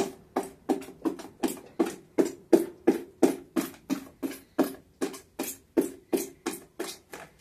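A pointed rod is jabbed again and again into the base of an upturned flower pot, making hollow knocks at about three a second that grow fainter near the end. It sounds like drainage holes being poked or cleared in the pot.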